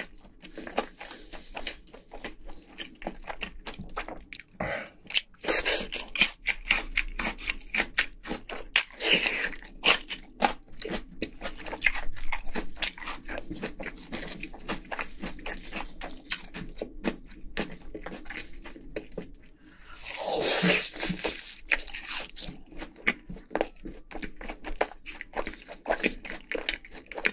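Crunching and chewing of crispy fried chicken: many crisp bites in quick succession, with softer chewing between.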